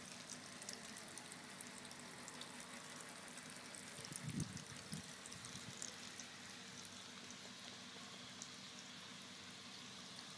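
Faint, steady crackling and pattering of water as a dense mass of catfish fingerlings feeds at the pond's surface, many small splashes and pops. A brief low thud about four seconds in.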